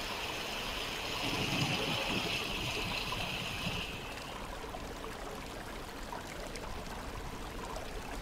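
Steady hiss of running water, which drops to a fainter level about four seconds in.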